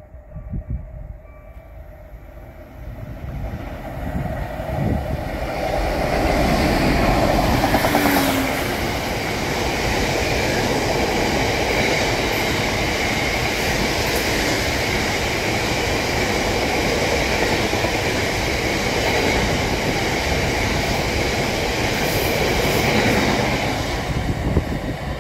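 A freight train of covered hopper wagons passing through a station. It grows louder as it approaches over the first six seconds, then the long rake of wagons goes by with a steady rumble and wheel clatter on the rails, easing off near the end.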